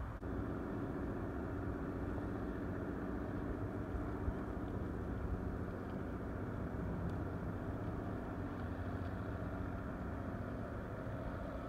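An engine running steadily, a low hum that holds one pitch, with a single short tap about four seconds in.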